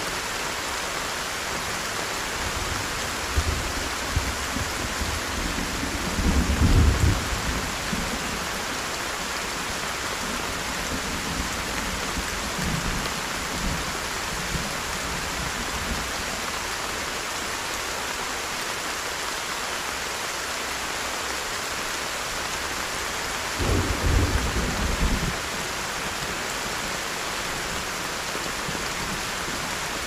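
Heavy rain falling steadily, with two short, low rumbles about six seconds in and again near twenty-four seconds, louder than the rain.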